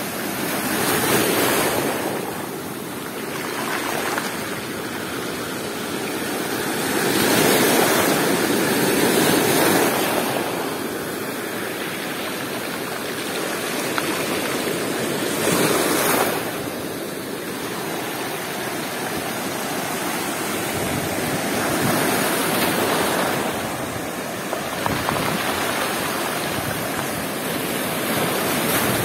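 Stormy sea surf: waves breaking and washing over a stone beach, the rush swelling and falling in surges every few seconds.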